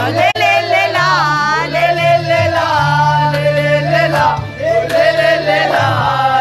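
Arabic pop song: a sung vocal line with sliding, ornamented pitch over a bass line that moves between held notes.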